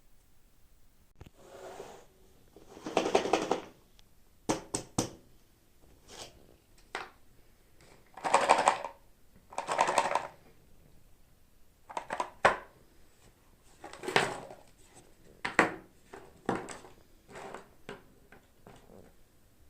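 Hands handling plastic toy packaging in a string of separate short crinkles and rustles, with sharp clicks and taps of plastic between them.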